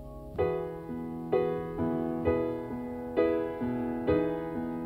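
Background music: a piano playing slow, evenly paced notes, about two a second, each ringing and fading, in an instrumental gap between the sung lines of a gentle ballad.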